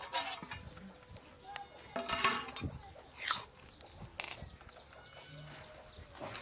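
Steel utensils clattering: a steel plate lid clanks against a steel kadai as it is lifted off, with a short metallic ring about two seconds in. This is followed by a metal spoon scraping and scooping cooked rice from the pan, in a few separate knocks.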